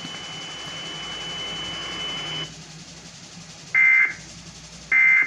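Emergency Alert System end-of-message data bursts: two short, loud, screechy digital squawks about a second apart, closing the alert. Before them there is hiss with a faint steady high tone that stops about two and a half seconds in.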